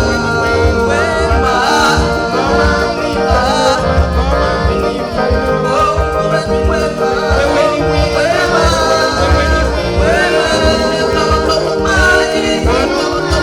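Gospel praise and worship song: singing over band accompaniment with a strong, steady bass.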